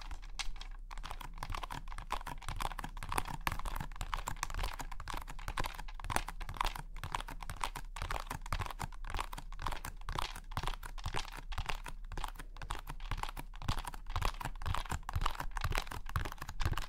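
Long fingernails tapping rapidly on a hard plastic waterproof bath phone holder case, a dense, even run of quick clicks.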